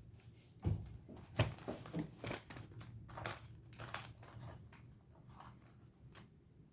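Irregular small clicks and scrapes from hands and small tools working on a Casio Baby-G wristwatch, with the sharpest clicks in the first half.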